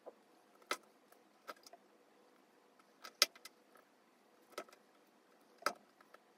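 Daiso Petit Block mini plastic bricks being pressed together by hand: a handful of separate sharp little clicks spread over several seconds, the loudest a little past three seconds in.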